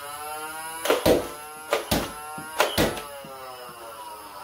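NERF MEGA Motostryke's battery-powered flywheel motors whining at speed while three shots are fired, each a pair of sharp clacks under a second apart. The whine falls in pitch near the end as the flywheels spin down.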